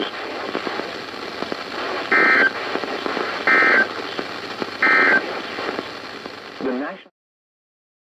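NOAA weather radio receiver playing the three short end-of-message data bursts of an EAS/SAME alert, evenly about 1.4 s apart, with radio hiss between them: the sign that the warning broadcast has ended. The sound cuts off abruptly about seven seconds in.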